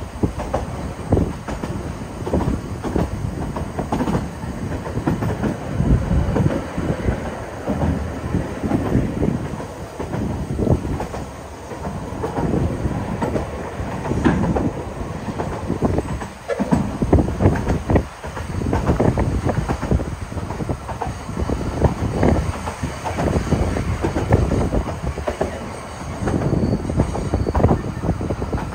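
Narrow-gauge railway carriage on the move, heard from an open-sided carriage: a steady rumble of wheels on the track, with irregular knocks and clatter as the coaches ride over the rails.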